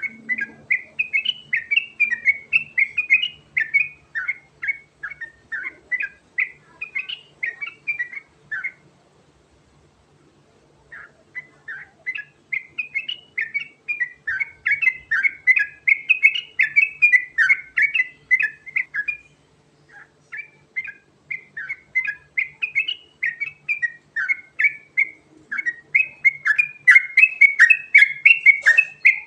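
Yellow-vented bulbul (trucukan) singing long, continuous runs of quick chirping notes, in three bouts broken by short pauses about nine and nineteen seconds in.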